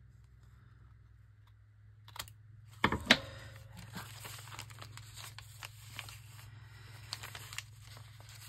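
Paper rustling and crinkling as paper pieces are handled, starting about two seconds in with two sharp knocks, then continuing with small clicks and taps.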